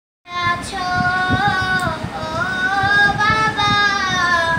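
A young girl singing a Bengali Islamic gazal solo, with no instruments, holding long notes that bend gently in pitch.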